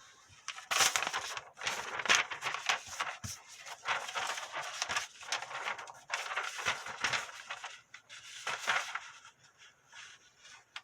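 The small 420HC stainless blade of a Leatherman Style CS mini multi-tool being dragged through paper in a series of tearing, crinkling strokes. The edge is not sharp enough out of the package, so the paper tears more than it slices.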